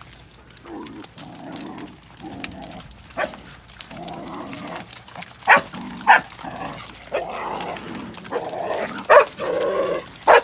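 Dog barking in short, sharp barks several times, the loudest about halfway through and near the end, with lower drawn-out calls in between.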